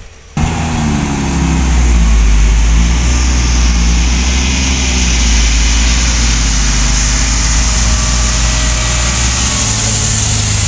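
Heavy diesel engine running steadily, with a thin high whine over it; it comes in abruptly about half a second in.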